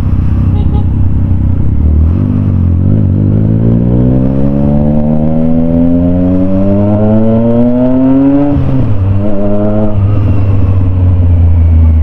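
Triumph Trident 660's three-cylinder engine, recorded on board while riding: a low steady note, then revs climbing steadily for about six seconds, dropping sharply, rising briefly again and settling to steady cruising.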